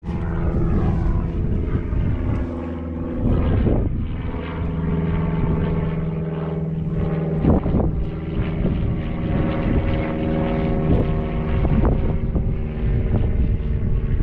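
A steady mechanical hum made of many even tones, with a few short swoops in pitch, of the kind a propeller-driven motor makes.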